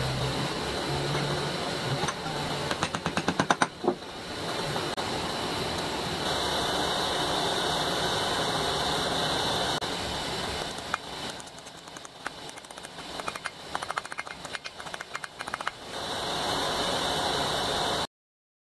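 Steady rushing hiss of the heat used to bring a steel rod to a glowing bend, broken by bursts of rapid metallic tapping and rattling about three seconds in and again from about eleven to sixteen seconds in. The sound cuts off suddenly near the end.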